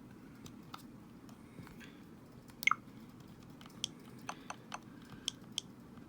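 Joy-Con D-pad buttons being pressed, about ten small clicks at irregular intervals, the loudest a little before the middle.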